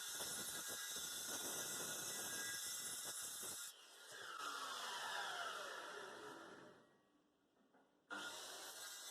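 Woodworking power tool running with a dense, hissing noise. Its motor then winds down in a falling whine and fades out, and the tool noise returns abruptly near the end.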